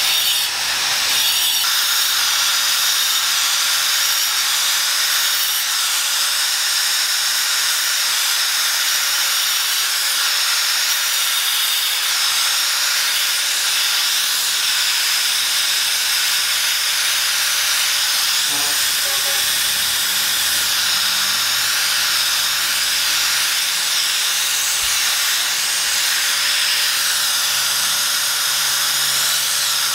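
Electric angle grinder with a cutting disc running continuously as it cuts into a block of sandstone. It makes a steady motor whine under a loud hiss of the disc in the stone.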